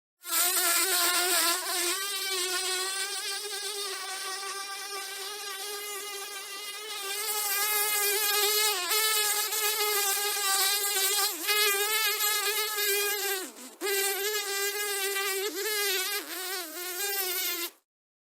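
House fly buzzing in flight, one continuous buzz whose pitch wavers up and down as it flies about. It briefly fades and drops in pitch about thirteen seconds in, then stops suddenly near the end.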